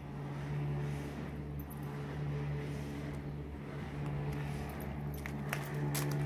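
A motor or engine running steadily with an even hum, with a few sharp clicks near the end.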